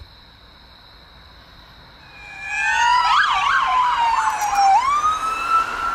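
Police car siren arriving: from about two seconds in, a fast warbling yelp plays over a slow falling wail, then a rising wail near the end. Under it is a steady high-pitched ringing tone.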